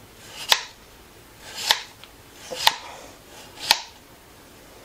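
Kitchen knife slicing a potato into thin rounds on a plastic cutting board: four strokes about a second apart, each a short cutting sound ending in a sharp tap of the blade on the board.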